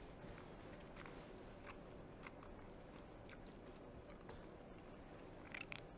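Faint close-up chewing of food, with scattered soft mouth clicks and a few louder ones close together near the end.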